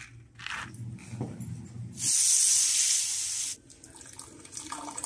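Kitchen tap running for about a second and a half, a loud even hiss of water, after a few light clinks and scrapes of a steel spoon against a dish.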